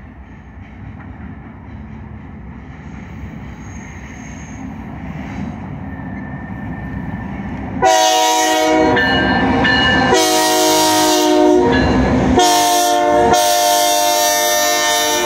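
Diesel freight locomotives rumble louder and louder as they approach. About eight seconds in, the lead locomotive's multi-chime air horn starts sounding loud and close, in four blasts: long, long, short, long. That is the standard grade-crossing signal.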